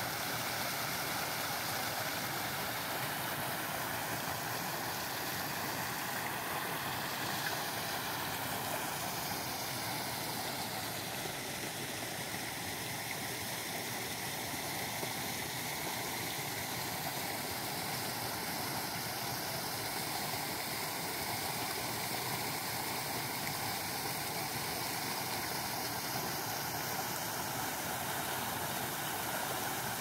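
Running water rushing steadily, a constant even wash of noise with no breaks.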